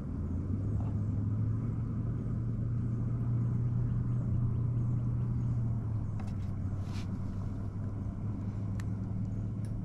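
An engine running with a steady low hum, its note shifting slightly lower about six seconds in, with a few faint clicks near the end.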